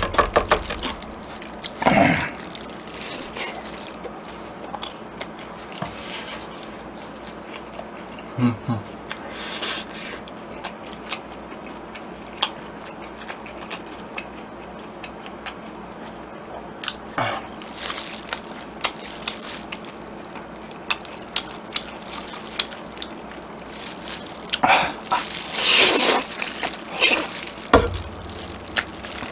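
Close-up eating sounds: chewing of pieces of fried pork with small wet clicks and squishes, then near the end several louder bursts of jjajangmyeon noodles being slurped up by hand.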